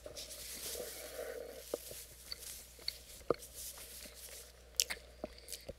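Quiet breathing and mouth sounds with several small sharp clicks, and a paper napkin rustling as it is held to the nose and mouth. This is a reaction to the burn of a very hot Carolina Reaper sauce.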